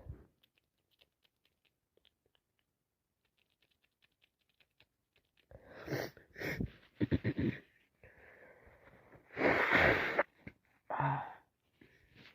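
A person with a cold and allergies sneezing. Several quick catching breaths and a drawn-in breath lead up to one sneeze, the loudest sound, about three-quarters of the way through. A shorter burst follows about a second later.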